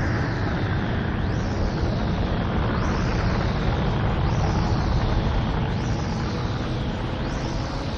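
Anime sound effect of a huge energy blast: a steady, deep rumbling roar, with a falling whoosh that repeats about every second and a half.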